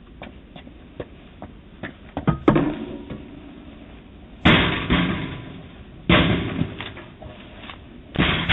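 A door being banged hard four times, a second and a half to two seconds apart, with lighter knocks and clicks before the first bang. The sound is thin and cut off in the highs, as through a doorbell camera's microphone.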